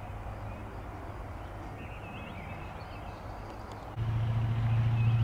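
Diesel shunting locomotive's engine running with a steady low hum; about four seconds in it suddenly gets much louder and stays up. Faint bird chirps in the background.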